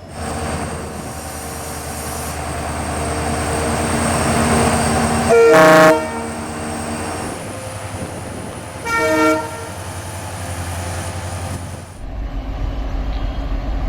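WDP4 diesel locomotive (EMD GT46PAC, two-stroke 710 engine) coming closer, its engine and running noise growing louder, and sounding its multi-note air horn twice: a long blast about five seconds in and a shorter one about three seconds later. Near the end the sound cuts to a steady low diesel rumble from a pair of WDM3D locomotives.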